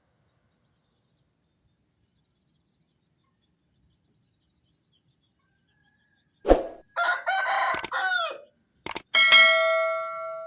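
Rooster crowing once, in a call that falls in pitch at the end. It comes after several seconds of near silence and a sharp knock, and is followed by a click and a bell-like ring that fades out.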